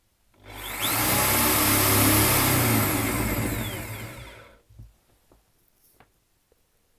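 Makita corded hammer drill run in plain drill mode, without hammering: the motor spins up about half a second in, runs for about four seconds and winds down, followed by a few faint clicks.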